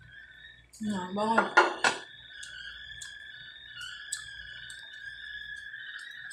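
Metal spoon and dishes clinking against glass bowls and plates, with a few sharp clinks about a second and a half in and lighter ticks after. A short vocal sound comes about a second in, and a steady high-pitched tone runs underneath.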